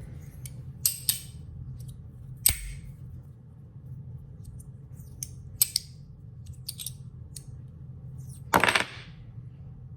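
Heavy brass magnetic fidget slider clacking as its plates are slid and snapped together by the magnets. It gives a few sharp metallic clicks at irregular intervals, the loudest a short burst of clacks near the end.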